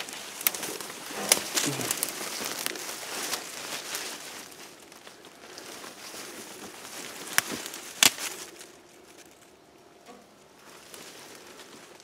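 Dry leaves, twigs and brush rustling and crunching as someone moves through undergrowth on foot, with several sharp twig snaps. The crackling dies down after about eight seconds.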